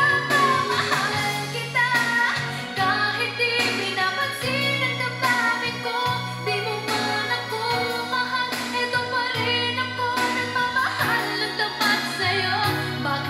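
A song with a sung vocal line, played back through Yamaha NS-10MMT bookshelf speakers driven by a Sansui AU-117 II amplifier.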